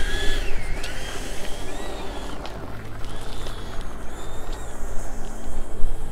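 RC model jet's engine whining while the plane taxis. The pitch dips and rises again about a second in, then the whine fades, over a low rumble.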